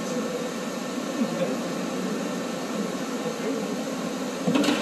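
Steady machine-shop background noise, a constant hum and hiss, with faint voices in the background. Near the end there is a short, louder sound.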